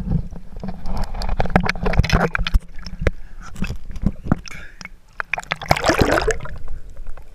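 Seawater splashing and sloshing against an action camera held at the surface by a swimming snorkeler, with many sharp slaps and clicks of water on the housing. About six seconds in comes a dense burst of bubbly splashing as the camera goes under, and the sound turns quieter and muffled underwater.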